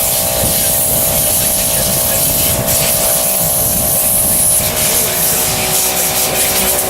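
Small petrol lawn mower engine running steadily, with a rough rumble and hiss over it.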